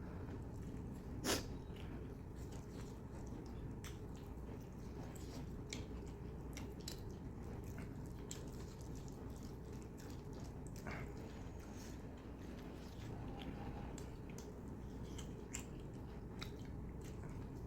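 A person chewing and eating mutton curry with soaked roti close to the microphone, with scattered small wet mouth clicks and one sharper click about a second in.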